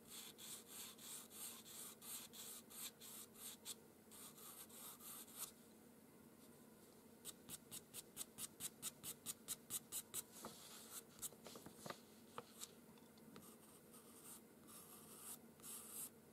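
Faint scratching of a pastel pencil on drawing paper in quick, short strokes. A run of strokes comes first, then a pause about five seconds in, then a faster run of about five or six strokes a second, then scattered strokes near the end.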